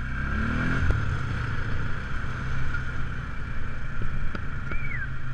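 ATV engine running while riding a rough grass trail, with a steady low rumble and a steady whine. The engine note rises in the first second as it speeds up, and there is a single knock about a second in.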